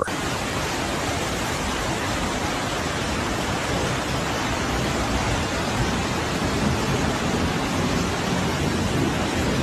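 Floodwater rushing out of the Three Gorges Dam's open spillway gates during an emergency flood discharge: a steady, unbroken rush of churning white water.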